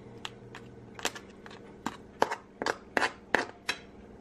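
Metal spoon clinking and scraping against a frying pan while stirring crabs in coconut-milk stew. The sharp clicks come sparsely at first, then faster and louder from about two seconds in.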